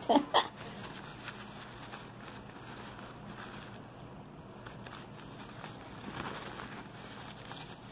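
Faint, irregular rustling and crinkling of paper and plastic packaging being handled, a little louder about six seconds in.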